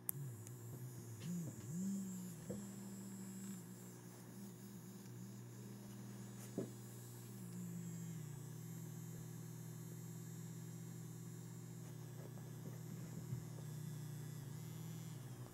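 Petio Crazy Mouse, a battery-powered bristle-legged vibrating cat toy, buzzing with its vibration motor switched on while held in the fingers. The buzz wavers in pitch for the first few seconds, then settles into a steady hum that drops slightly about halfway, with a few faint clicks of handling.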